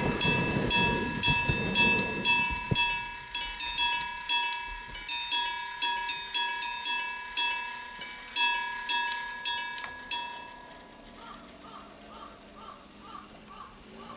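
Electric bell of a railway level crossing ringing, about three strikes a second over a steady ringing tone, with a low train rumble dying away in the first few seconds. The bell stops about ten seconds in, leaving faint repeated chirps.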